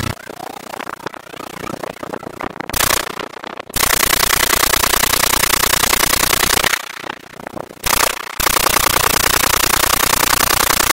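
Kalashnikov AK-47-pattern rifle firing on full automatic: a short burst, then long bursts of rapid shots, broken by a brief pause and another short burst midway.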